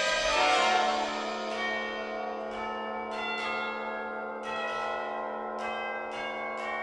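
Tubular bells struck again and again at uneven intervals, each stroke ringing on, over a held low note, after a full orchestral chord drops away within the first second.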